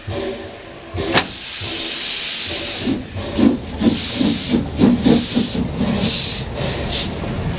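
Narrow-gauge steam locomotive 99 4011-5 starting away. A long hiss of steam begins about a second in, then the exhaust chuffs, about two a second and picking up. Hissing bursts from the open cylinder drain cocks come between the chuffs.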